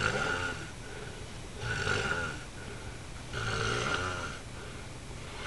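A sleeper snoring in a steady rhythm: three snores, one every second and a half or so.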